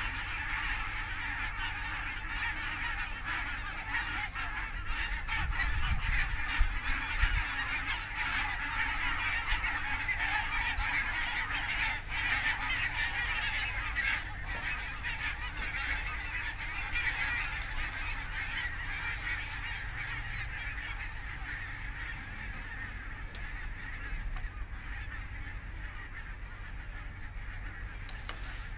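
A large flock of geese honking continuously as it flies over, many birds calling at once, the chorus thinning out and fading toward the end.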